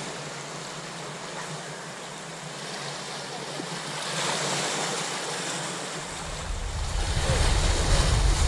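Small sea waves washing and breaking over shore rocks. About six seconds in, wind starts buffeting the microphone, a low rumble that makes it louder.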